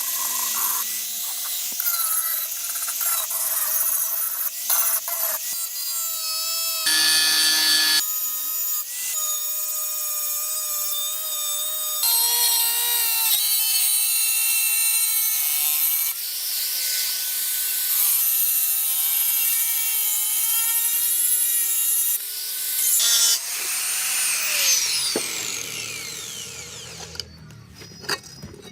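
Electric power tools working on a rusty iron hoe head: a motor whine over grinding and rubbing, its pitch jumping from one short clip to the next. Near the end a tool winds down and the sound fades.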